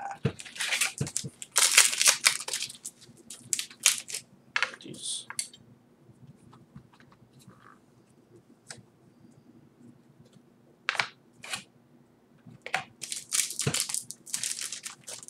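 Foil booster-pack wrapper crinkling and crackling as fingers work at tearing it open, in bursts of crackle with a quieter stretch of a few soft clicks in the middle.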